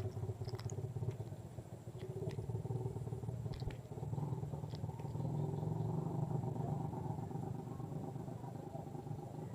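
A small engine running steadily with a low drone, a little louder around the middle, with a few light clicks in the first five seconds.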